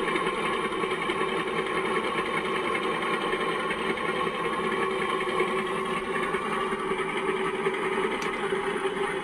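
Sound decoder in an O gauge model Class 52 'Western' diesel playing the locomotive's twin Maybach diesel engines idling steadily, heard through the model's small onboard speakers.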